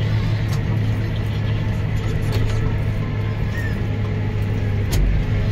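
Claas Arion 420 tractor's 100-horsepower FPT engine running steadily at about 1500 revs under load, driving the mower through the PTO in 540 economy, heard from inside the cab. Light ticks come through, with a sharper knock near the end.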